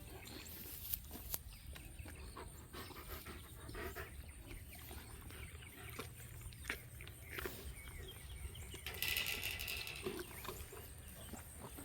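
Barn animals (donkeys or llamas) moving about, heard as scattered faint knocks and shuffles over a low steady hum.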